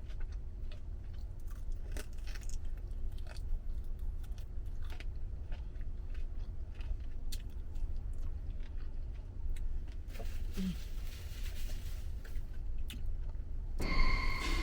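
Close-up chewing and biting on lemon pepper chicken wings, with small wet mouth clicks scattered irregularly. Music starts near the end.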